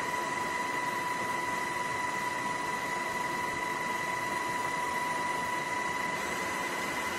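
Steady, unchanging machine-like noise: an even hiss with a constant high whine sounding at two pitches.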